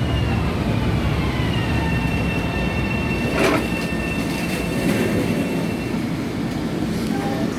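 LIRR M7 electric train pulling in, a steady low rumble with a high whine that falls in pitch over the first two seconds as it slows and then holds steady. A single sharp clank comes about three and a half seconds in.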